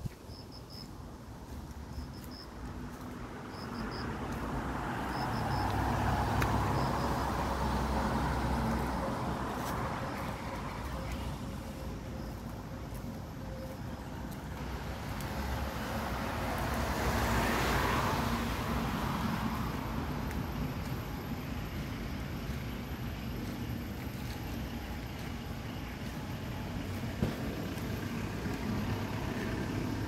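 Road traffic: a steady hum of cars, with two vehicles passing that swell and fade, the first about six seconds in and the second, brighter, about seventeen seconds in.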